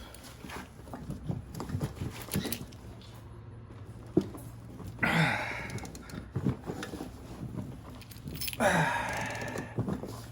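Hand work on a car engine: small clicks and knocks of tools and parts being handled, with a sharp click about four seconds in. Two louder breathy bursts come around five and nine seconds, like a person's heavy exhales.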